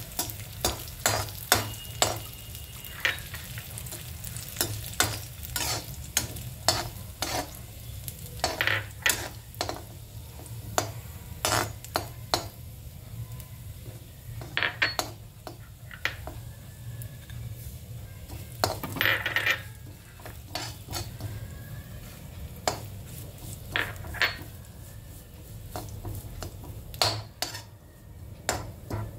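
Long metal spatula stirring chopped nuts frying in an aluminium kadai: irregular scrapes and sharp taps of metal on the pan over a light sizzle.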